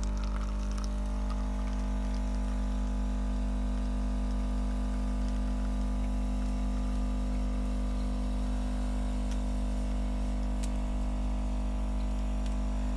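Nivona bean-to-cup coffee machine running with a steady, even hum as water is pumped through it.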